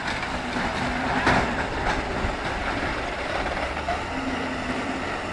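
Heavily loaded semi-truck's engine running steadily under load as it pulls its trailer up a dirt slope, with a single knock about a second in.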